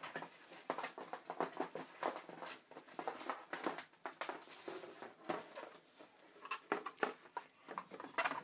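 Irregular light clicks, taps and rustles of a cardboard box and its packaging being handled and moved about.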